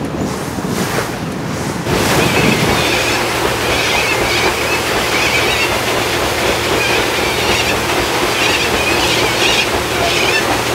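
Wind and water rushing on the deck of a moving paddle boat, with a steady low hum of the boat's engine coming in about three seconds in.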